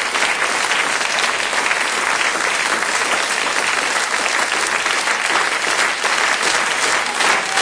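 Large theatre audience applauding, a dense and steady clapping that neither rises nor fades.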